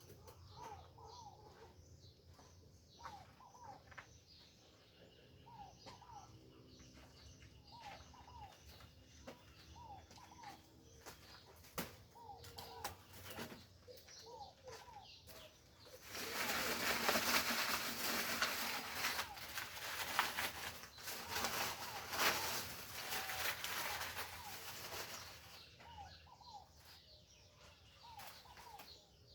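Birds calling outdoors, short clipped notes repeated in small groups, with some lower held notes. About halfway through, a loud rushing noise rises and drowns them for about ten seconds, then stops and the calls carry on.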